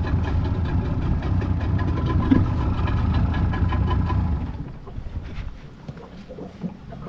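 Small boat's outboard motor idling with a steady low rumble, which drops away about four and a half seconds in.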